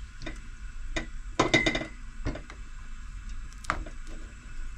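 A spoon knocking and clinking against a mixing bowl, a handful of separate taps at irregular spacing with a quick cluster in the middle, as the spiced batter paste for viazi karai is stirred.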